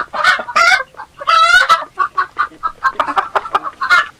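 Chickens clucking rapidly in short, quick calls, with a longer drawn-out squawk about a second in; the clucking stops near the end.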